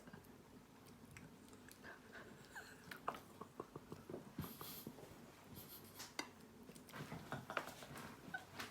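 Faint, slow chewing: scattered soft mouth clicks and smacks from someone eating while drowsy, busiest in the second half.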